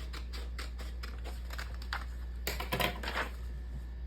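A quick run of light clicks, about five or six a second, for the first couple of seconds, then a few louder rustling handling noises a little past halfway, over a low steady hum.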